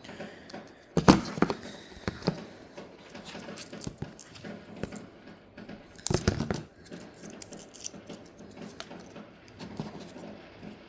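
Handling noise from unboxing: scattered clicks and rustles, with two louder bursts of knocks about a second in and about six seconds in.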